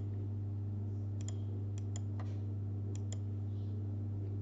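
Computer mouse clicking several times, mostly in quick pairs, starting about a second in, over a steady low hum.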